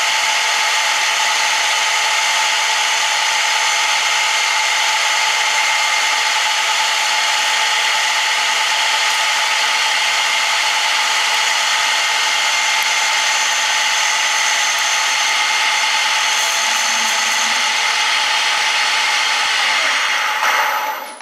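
Metal lathe running steadily while its tool takes a lengthwise cut along a cast aluminium bar: a steady machine whine with cutting hiss. It stops near the end.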